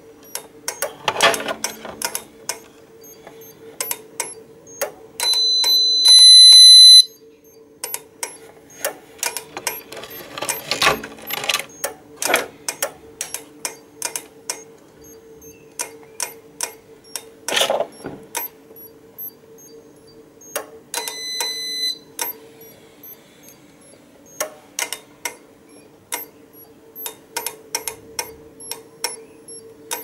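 Alarm system keypad buzzer sounding a shrill steady beep for about two seconds, loudest near the end, and again briefly later. Under it run regular sharp ticking clicks, a low steady hum, and now and then plastic rattles from handling the keypad housing.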